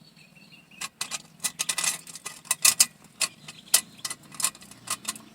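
Irregular metallic clicks and clinks of stainless steel exhaust clamp pieces being fitted together by hand.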